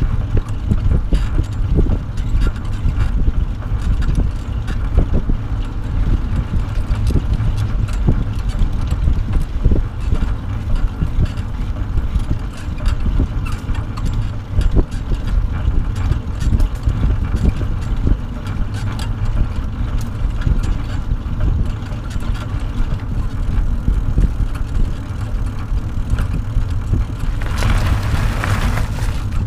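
Wind rumbling on the microphone of a bicycle-mounted camera, with the rolling noise and small rattles and knocks of a towed pet trailer on pavement. Near the end there is a brief rushing hiss.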